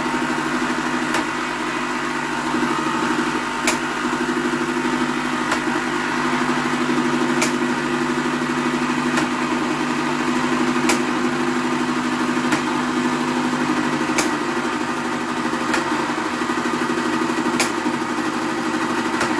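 Gaggia Classic espresso machine's vibratory pump buzzing steadily as it runs descaling solution through the system, an attempt to clear limescale from a blocked solenoid valve. A sharp tick comes about every two seconds.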